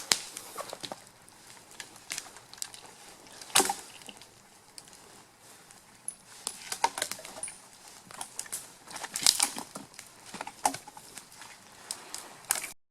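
Wood campfire crackling and popping, with irregular sharp snaps, some much louder than others; the sound cuts off suddenly near the end.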